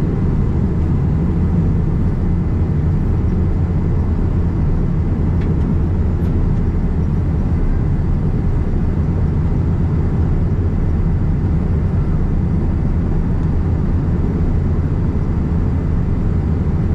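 Boeing 787-9 airliner cabin noise in flight, heard from a window seat over the wing: a deep, even rumble of airflow and engine noise with a fainter hiss above it.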